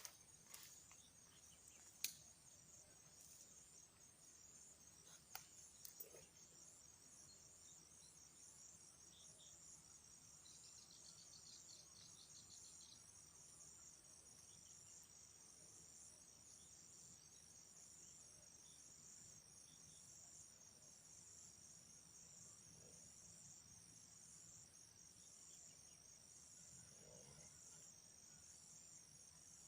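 Insects chirping steadily in a fast, even, high-pitched pulse, with a sharp click about two seconds in and a couple of soft knocks a few seconds later.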